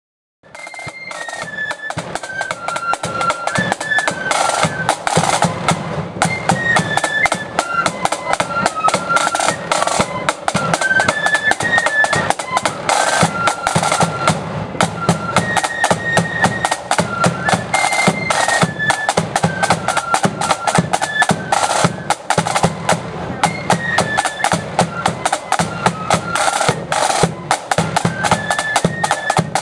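A marching flute band playing a tune: a high, stepping flute melody over rolling snare drums and a bass drum beat. It starts about half a second in.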